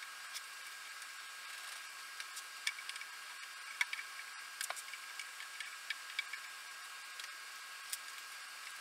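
Faint, irregular small clicks and taps over a steady hiss with a thin high whine.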